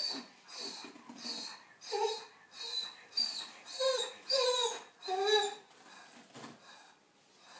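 Dog whimpering in short, repeated whines, some sliding up and down in pitch, while its foreleg bandage is unwrapped for catheter removal.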